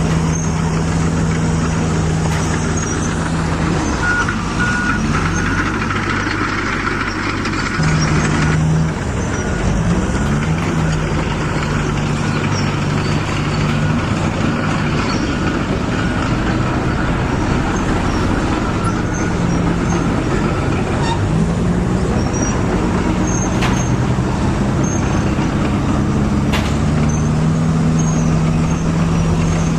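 A vehicle engine running steadily, its pitch stepping up and down a few times, with a couple of sharp clicks late on.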